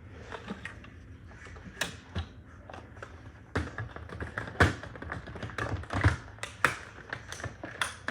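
Irregular light taps and clicks of small objects being handled, with a few sharper knocks, denser and louder from about halfway through.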